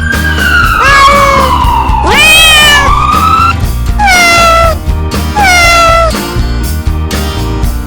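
Cat meowing several times, each call a short rise and fall in pitch, over background music with a steady beat.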